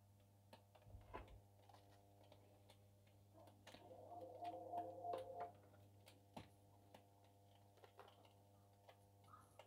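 Near silence: faint room tone with a steady low hum, scattered light ticks, and a faint murmur with a few tones about halfway through.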